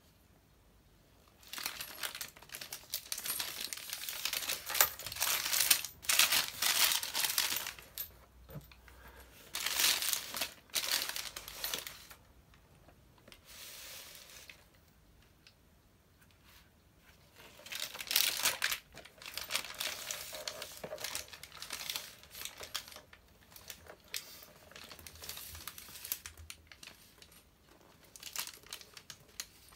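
Clear plastic wrap crinkling as a handbag's plastic-wrapped chain shoulder strap is handled, with light clinks of the metal chain and hardware. It comes in several bursts, with a quiet pause of a few seconds around the middle.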